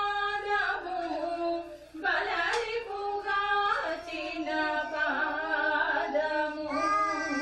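A woman singing a devotional song unaccompanied, with long held notes that slide from one pitch to the next.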